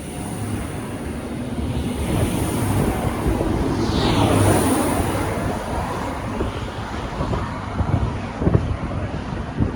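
V/Line VLocity diesel railcar train accelerating away from the platform: the rumble of its engines and wheels swells to its loudest about four to five seconds in and then eases off, with a few knocks from the wheels near the end.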